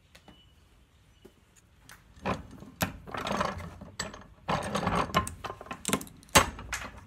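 Butternut shell cracking in a bench vise: a run of crunching and sharp snaps as the hard shell gives way, the loudest snap near the end.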